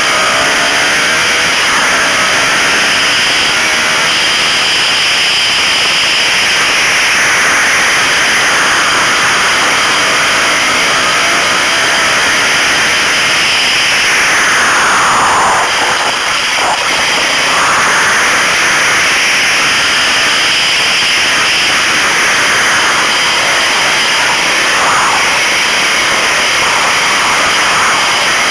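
Off-road motorcycle engine running hard on a dirt trail, its pitch rising and falling as the throttle is worked, heard from on the bike under a rush of wind noise. About fifteen seconds in the pitch drops sharply and the engine briefly eases off before pulling again.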